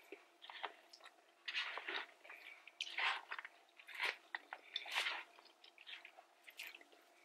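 Close-miked chewing and crunching of a mouthful of poke bowl, mixed with a plastic spork scraping and clicking in a paper bowl. The sounds come in short irregular bursts, a few louder crunches about three, four and five seconds in.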